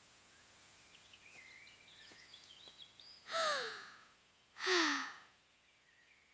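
A small cartoon character's voice: two breathy, sigh-like exhalations about a second apart, each falling in pitch, the second lower and louder. Faint bird-like chirps come before them.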